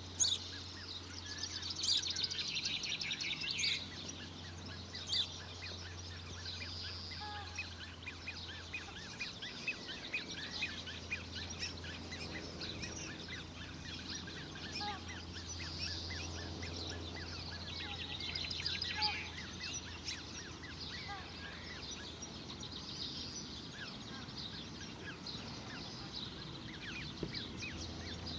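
Australasian crested grebe chicks begging with short, high peeping calls that go on throughout, with two runs of rapid peeps, a couple of seconds in and again past the middle.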